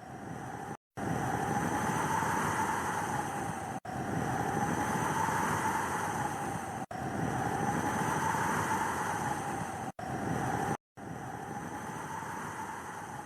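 Blizzard wind howling: a steady rushing noise with a whistling tone that slowly rises and falls. It is broken by brief total dropouts to silence about every three seconds.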